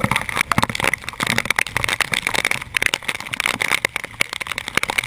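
Storm rain and wind beating on the camera, the drops striking close to the microphone as a dense, irregular crackle of taps over a steady rush.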